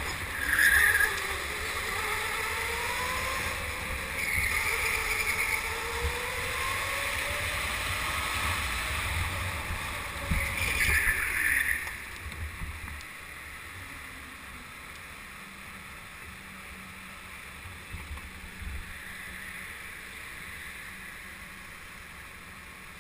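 Onboard an electric indoor go-kart: the motor's whine rises and falls in pitch with speed over a low rumble, broken by tyre squeals in the corners, the loudest and longest about eleven seconds in. After about twelve seconds it goes quieter and steadier.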